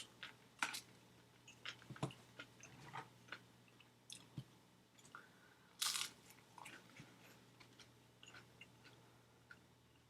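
Quiet chewing and biting of fast food: a scatter of small crunches and clicks, with a louder crackle about six seconds in.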